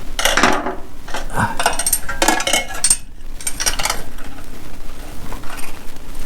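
Metal hand tools clinking and clattering against one another in irregular bursts, then quieter after about four seconds.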